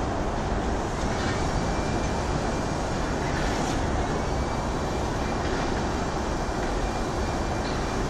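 Steady low rumble of distant city traffic, with a faint thin high squeal held for a couple of seconds midway.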